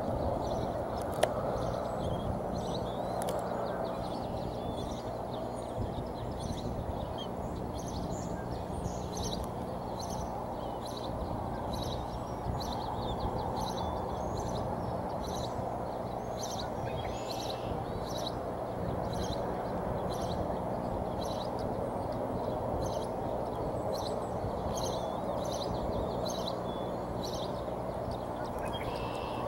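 Outdoor nest ambience: a steady low rushing noise with many short, high chirps from birds, repeating irregularly about once or twice a second, and one sharp click about a second in.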